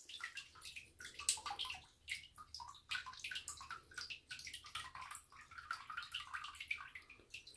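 Water dripping and trickling from a water heater's drain valve, faint quick drips coming irregularly: the valve will not shut fully after the tank was flushed.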